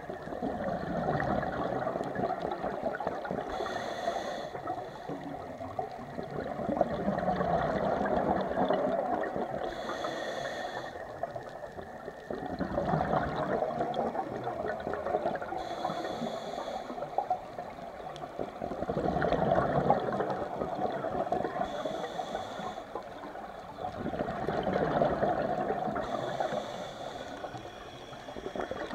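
Scuba diver breathing through a regulator underwater: a short hiss on each inhale, then a rush of exhaled bubbles. Five breaths, about six seconds apart.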